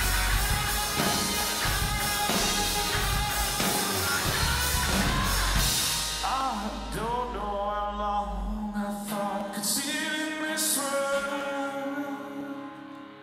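Live rock band playing with electric guitar, bass guitar and drums. About halfway the drums stop, the bass following shortly after, leaving sustained, bending electric guitar notes that fall away near the end.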